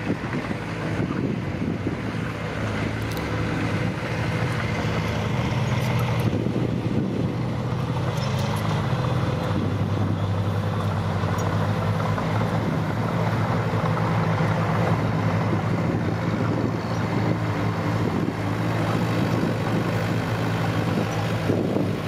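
Engines of small dump trucks running, a steady low engine drone that grows a little louder a few seconds in.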